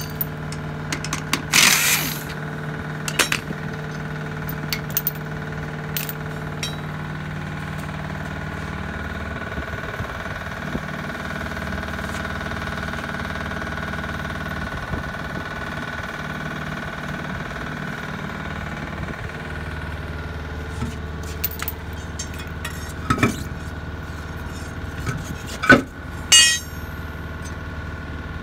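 An impact wrench rattles briefly on a truck wheel's lug nuts about a second and a half in, followed by scattered metallic clinks and clanks as the wheel and nuts are handled. Two loud metal clanks come near the end, the last one ringing, while an engine runs steadily underneath.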